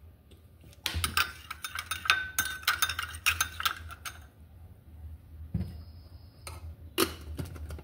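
Metal spoon clinking and scraping against a glass bowl while stirring a soy-sauce mixture: a quick run of clinks for about three seconds, then a few lighter taps.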